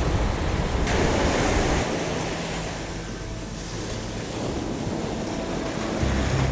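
Heavy surf crashing and washing up the beach, with a wave breaking about a second in, then the rush slowly fading. A low steady hum comes in near the end.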